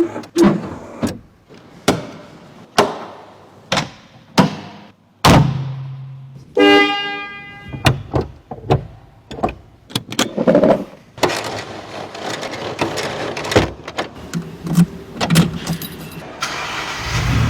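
Ferrari F40: a run of sharp clunks and clicks, then a single horn-like tone held for about a second. Near the end its twin-turbo V8 starts and settles into a steady running note.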